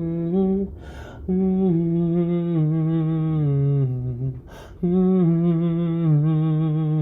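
A single voice humming a slow, wordless melody in long held phrases, with a quick audible breath about a second in and another past four seconds.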